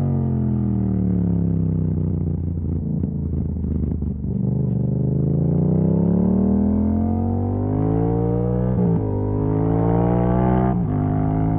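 Yamaha MT-07's 689 cc parallel-twin engine, heard through an exhaust with its dB killer removed. Revs fall for the first four seconds or so, then climb under acceleration, with two quickshifter upshifts that briefly drop the revs, about nine and eleven seconds in.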